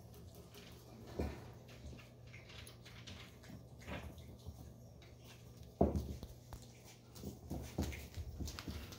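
Chihuahua puppies scuffling and playing on a tile floor: scattered light taps and knocks from their movement, with one louder bump about six seconds in.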